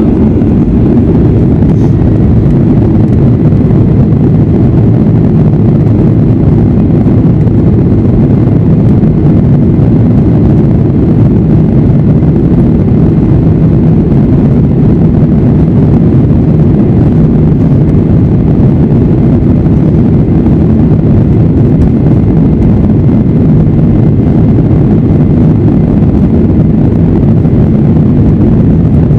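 Boeing 737-800's CFM56-7B engines at takeoff thrust, heard inside the cabin over the wing during the takeoff roll. It is a loud, steady, deep rumble that comes up to full level just after the start.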